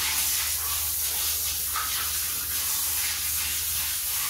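Hand-held shower head on a hose spraying water over a Rottweiler puppy's legs and body: a steady hiss of water, wetting the dog from the legs up. A low steady hum runs underneath.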